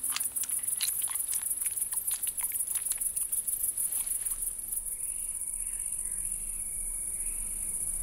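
Crickets chirring steadily at a high pitch. Over the first four seconds or so, rapid irregular clicks of the shrew crunching its prey sound over the chirring, then stop.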